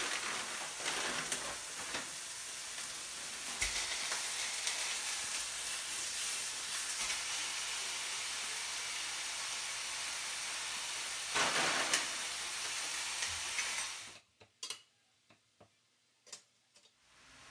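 Ground beef and onion frying in grapeseed oil in a stainless steel skillet over medium-high heat: a steady sizzle, louder for a moment about twelve seconds in. The sizzle cuts off suddenly near the end, leaving only a few faint clicks.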